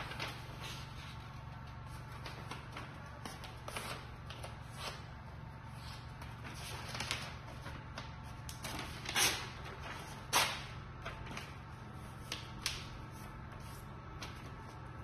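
Sheets of paper rustling as they are handled, in short irregular strokes, the loudest about nine and ten seconds in, over a steady low hum.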